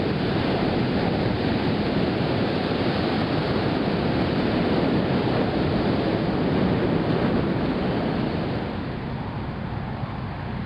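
Ocean surf washing onto the beach, mixed with wind buffeting the microphone in a steady rush that eases a little near the end.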